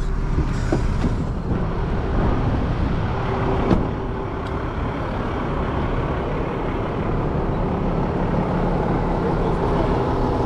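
Tow truck engine running steadily, with one short knock about four seconds in.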